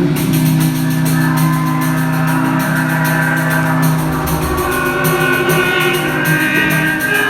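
Music: sustained pitched tones held over a steady, fast percussion beat of sharp high strikes.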